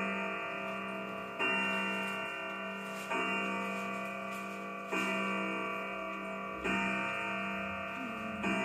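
Pearl grandfather clock striking the hour, counting out ten o'clock: the same deep ringing note is struck about every two seconds, five times, each ringing on into the next.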